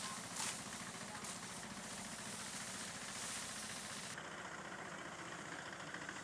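A small engine running steadily, with a short knock about half a second in.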